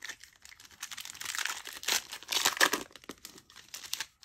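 Foil wrapper of a Yu-Gi-Oh booster pack crinkling and tearing as it is opened: a dense run of crackling with scattered sharp clicks, loudest about two to three seconds in.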